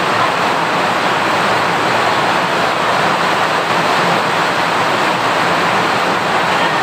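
Steady, loud rushing noise with no distinct events or changes.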